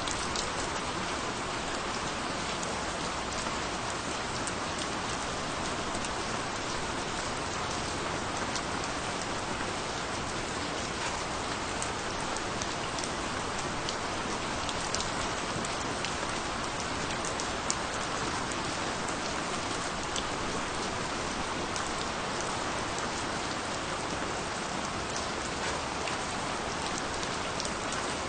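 Steady, calm rain falling, an even hiss with many individual drops ticking sharply on a surface.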